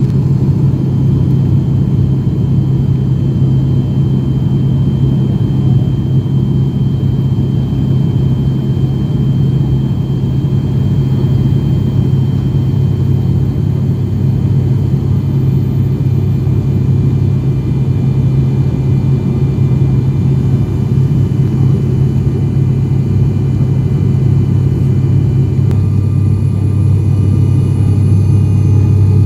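Cabin drone of an ATR 72's twin turboprop engines and propellers on approach: a loud, steady low hum with faint high whining tones above it. Near the end the pitch shifts and the drone grows slightly louder.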